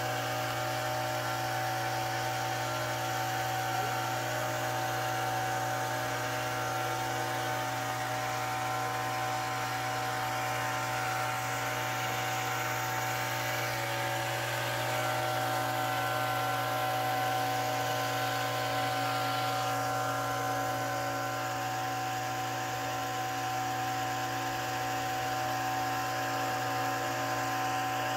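Small engine-driven water pump running steadily, a constant drone with a strong low hum, pushing water down the well pipe being sunk.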